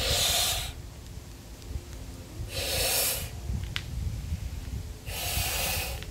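Man mouth-inflating a 35-inch latex balloon: three loud, short, hissing breaths drawn in about every two and a half seconds, with quieter stretches between them while he blows into the balloon.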